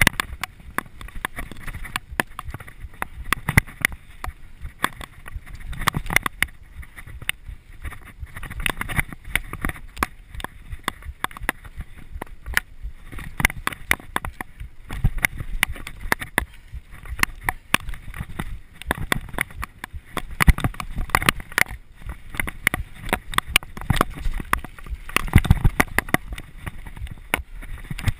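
Mountain bike riding fast down a dirt forest trail: a constant rattle of clicks and knocks as the tyres and bike run over roots and bumps, with low gusts of wind buffeting the microphone.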